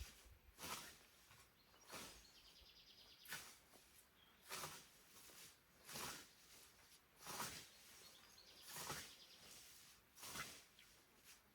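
Hand scythe swinging through tall grass: a steady rhythm of swishing cuts, about one stroke every second and a half, eight in all. A bird chirps faintly about three seconds in.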